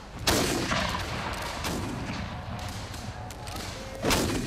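Black-powder cannon and gunfire in a battle scene. A loud report comes just after the start and another near the end, with scattered lighter shots between them over a low rumble.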